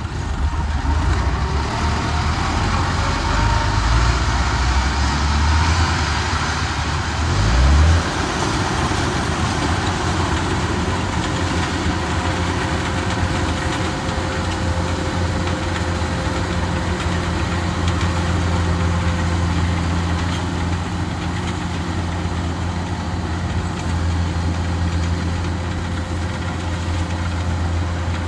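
Diesel engine of a Kubota 105X rice combine harvester running steadily, with a brief rise in pitch and loudness about eight seconds in.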